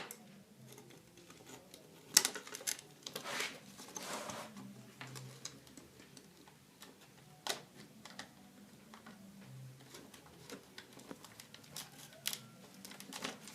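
Hands working electrical wire into switch and connector terminals: scattered small clicks and taps with a few brief scrapes.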